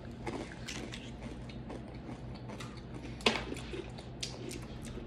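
Crunching on Takis rolled tortilla chips: irregular crisp clicks of chewing, with one sharper crack about three seconds in.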